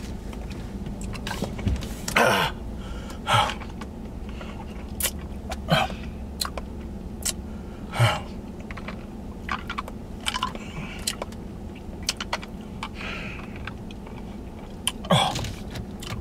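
A man sucking and smacking on an extremely sour hard candy, with short gasps and strained breaths at irregular intervals as he reacts to the sourness. A steady low hum of the car cabin runs underneath.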